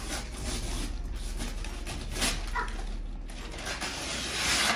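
Wrapping paper rustling and tearing as a Christmas gift is unwrapped, with a short tear about two seconds in and a longer, louder rip near the end.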